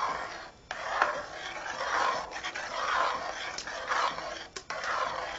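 A spoon stirring a thick barley-flour and milk mixture (talbina) in a metal pot, with rhythmic swishing scrapes about one a second.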